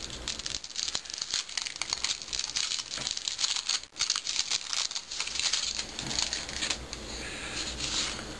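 Crinkling and tearing of a 1988 Topps Big baseball card pack wrapper as the pack is torn open by hand: a run of irregular crackles and rustles.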